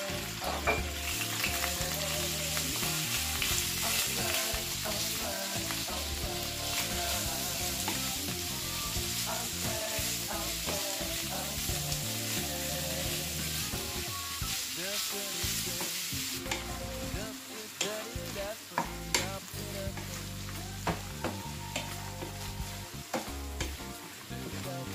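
Minced beef sizzling in a nonstick frying pan while a wooden spatula breaks it up and stirs it, with frequent scrapes and taps on the pan. The sizzle eases a little partway through.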